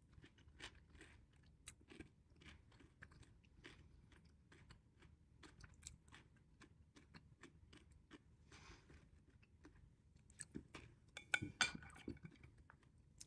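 A person faintly chewing food in his mouth, with soft irregular crunchy ticks. Near the end come a few louder clicks.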